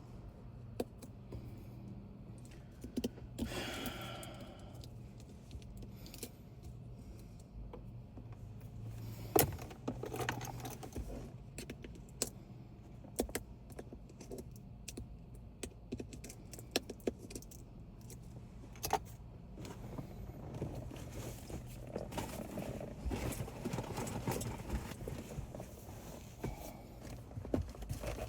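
Scattered light clicks, taps and scrapes of small hard parts and tools being handled, with a brief rustle a few seconds in, over a low steady hum.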